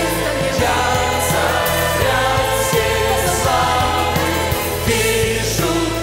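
Large mixed choir singing in Russian over instrumental accompaniment, holding long notes above a steady low bass.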